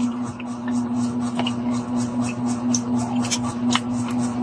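Eating sounds: chewing with quick, even mouth clicks, and a metal spoon and fork clinking and scraping on a plate of rice a few times, over a steady low hum.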